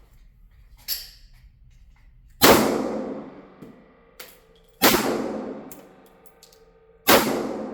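Smith & Wesson M&P 5.7 pistol (5.7×28mm) firing three shots about two and a half seconds apart, each with a long ringing echo. Two fainter sharp cracks come in between, about a second in and a little after the halfway point.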